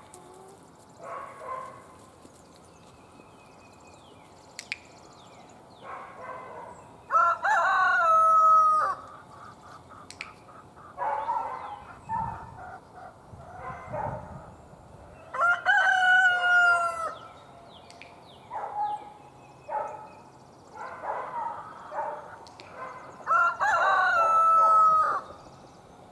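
A rooster crowing three times, about eight seconds apart, each crow lasting roughly two seconds, with shorter chicken calls and clucks between the crows.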